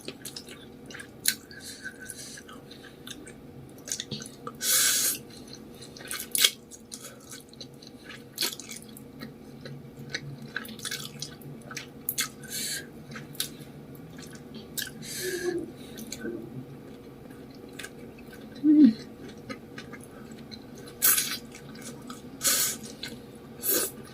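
Close-miked eating of spicy instant noodles with fish balls in soup: wet chewing and mouth clicks throughout, with several short slurps.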